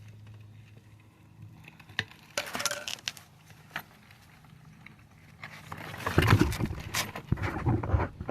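Hand work on a wheel: a couple of sharp clicks and short scrapes, then louder, rough, irregular rubbing and scuffing from about five and a half seconds in as a rubber snap-in valve stem is gripped and worked into the rim hole.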